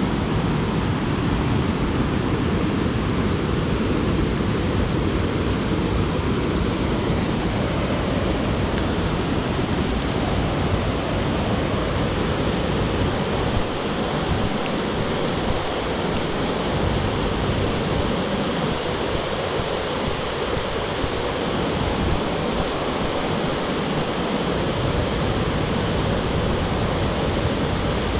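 Steady rush of water from a rain-swollen mountain waterfall and stream, an even loud noise with a little less low rumble around the middle.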